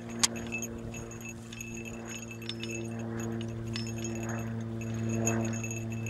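Metal trace chains and harness jingling and clinking as a draft horse pulls a plough, with one sharp clink about a quarter second in. A steady low hum runs underneath and grows a little louder toward the end.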